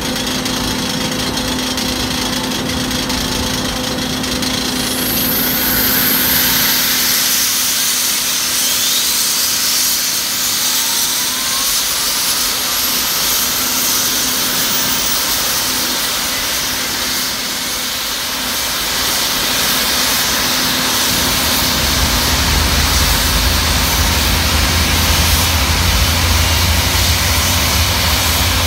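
New CFM56 high-bypass turbofan starting up: over a steady hiss and hum, a whine rises in pitch as the engine spools up, and about two-thirds of the way through a deep low rumble joins in and holds as it runs up to idle.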